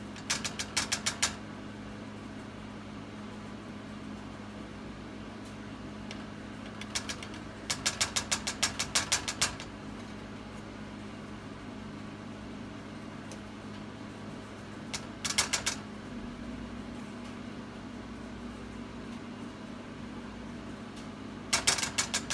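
A metal measuring spoon tapped quickly against the rim of a plastic container in four short runs of taps, knocking minced garlic into melted butter. A steady low hum runs underneath.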